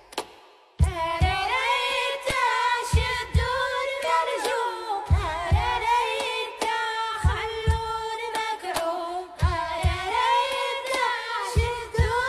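A song: a singing voice over repeated drum hits, starting under a second in after a brief pause.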